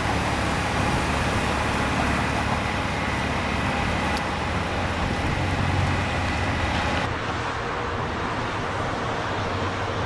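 Steady rumble and rolling noise of a train moving through the station tracks. About seven seconds in, the sound changes abruptly and loses its highest hiss.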